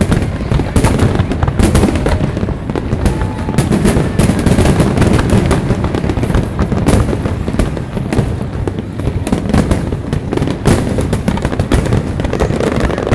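Aerial fireworks display going off: rapid, overlapping bangs and crackling of bursting shells, with no break.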